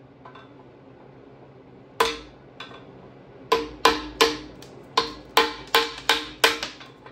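Hammer blows on the cast-iron wet cylinder liners of a 1962 Triumph TR4 engine block, driving the liners out of the block. Each blow rings briefly. A single strike comes about two seconds in, then a steady run of strikes at about three a second.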